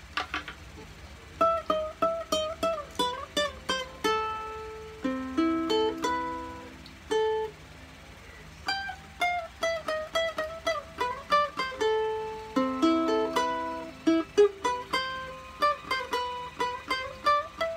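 AnueNue mahogany pineapple-shaped concert ukulele being played: a plucked melody of quick single notes and chords, with a brief pause about halfway through.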